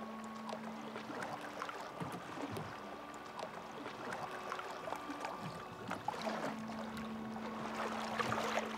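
Wooden rowboat being rowed: oars dipping and splashing, with small knocks and water lapping at the hull. Held low tones of background music sound over it, with the lowest tone dropping out about a second in and returning about six seconds in.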